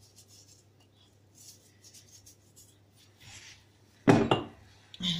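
Salt sprinkled by hand over a sauced pizza: faint soft hissing through the first few seconds. Then a loud knock about four seconds in and a brief ringing clink near the end, as kitchen items are handled on the worktop.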